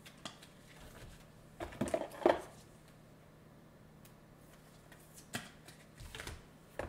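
Trading cards and their packaging being handled on a table: a cluster of clicks and taps with the loudest about two seconds in, then a few lighter taps near the end.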